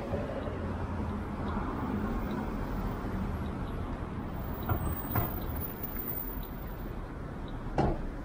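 City street traffic: a steady low rumble of cars driving past, with a few short knocks, the loudest near the end.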